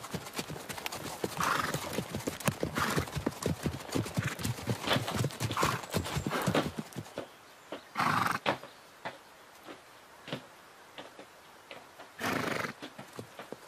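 Several horses' hooves clip-clopping on a dirt street, thinning out as they come to a halt about seven seconds in. A few short horse calls come through, the loudest about eight and twelve seconds in.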